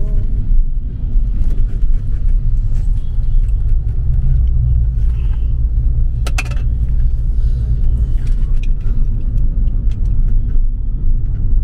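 Steady low road and engine rumble inside a moving car's cabin, with a couple of sharp clicks about six seconds in.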